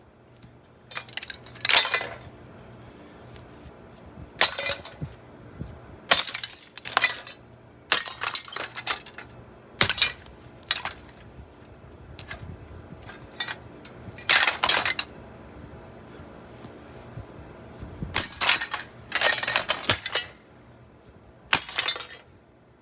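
An old Heritage six-blade ceiling fan being smashed apart, giving a dozen or so irregularly spaced crashes of breaking parts with clinks and rattles. This is a worn-out fan from 2000 being destroyed.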